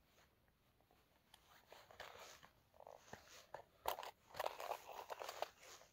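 Faint crunching and rustling with a few sharp clicks, the sharpest about four seconds in, as fishing tackle is handled by hand while kneeling in snow.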